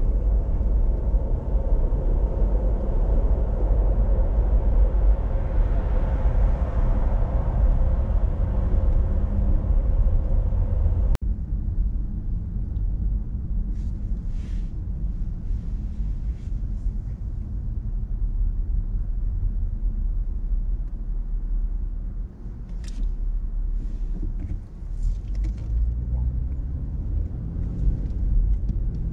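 Steady low rumble of a car driving, loud and full for the first eleven seconds or so, then cutting off abruptly to a quieter rumble with a few faint ticks.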